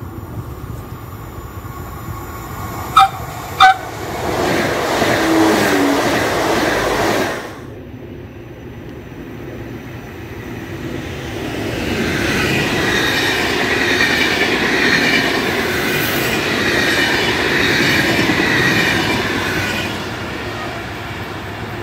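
Two short, loud horn blasts about three seconds in from an approaching Malpensa Express electric train, followed by its run past, which cuts off abruptly. After a short lull, a Trenord TAF double-deck electric multiple unit passes at speed, building up and then fading near the end.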